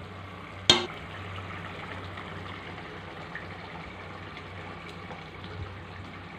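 Spiced fish gravy boiling in a pan, a steady bubbling, just after the fish have gone in. A single sharp knock comes less than a second in.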